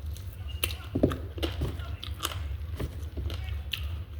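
Close-up eating sounds of a mukbang of nasi padang: irregular crunching, biting and chewing clicks, over a steady low hum.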